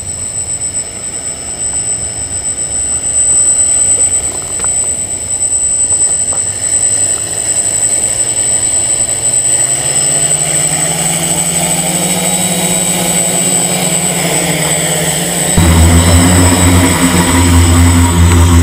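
Quadcopter's electric motors and propellers running, with a steady high whine. The rotor tone rises in pitch as the motors spin up. Then, about three-quarters of the way through, it suddenly becomes much louder and heavier, heard right next to the propellers.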